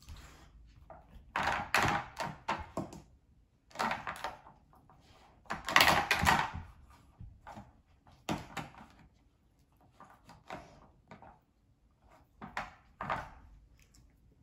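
Hard plastic dog puzzle toys knocking and clattering on a hardwood floor as a husky puppy noses at them, in bursts of sharp clicks and knocks every second or two, the loudest about six seconds in.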